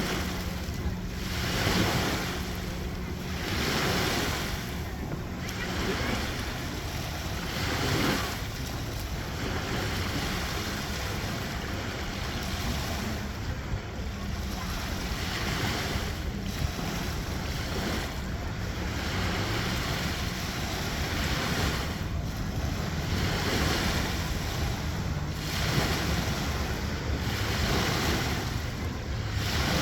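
Baltic Sea waves washing in, the surf swelling and falling back every second or two, with wind buffeting the microphone. A faint low steady hum runs under it for the first several seconds.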